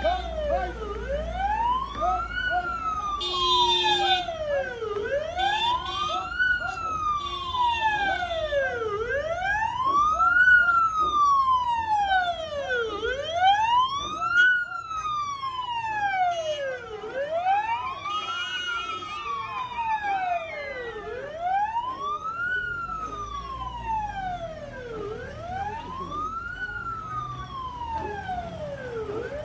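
Vehicle siren on a slow wail, its pitch rising and falling once about every four seconds without a break. A few shorter buzzy tones sound over it now and then.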